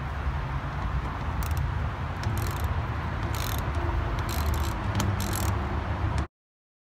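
A screw being fastened into the underside of a rear bumper apron, giving several short scratchy clicks over a steady low rumble. The sound cuts off abruptly near the end.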